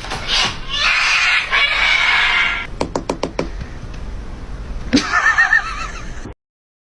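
A rushing, hissy noise, then a quick run of about five knocks, then a short, wavering, high-pitched animal call.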